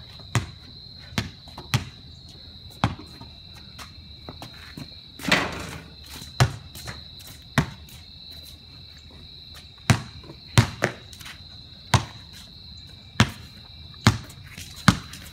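Basketball bouncing on a concrete driveway as it is dribbled: single sharp bounces roughly a second apart, some in quick pairs, with one longer, noisier hit about five seconds in. A steady, high-pitched insect trill runs underneath.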